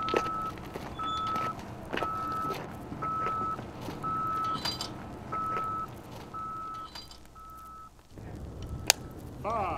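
A vehicle backup alarm beeping: one steady high tone, about one beep a second, each lasting about half a second. It stops about eight seconds in. Light knocks and clicks sound alongside.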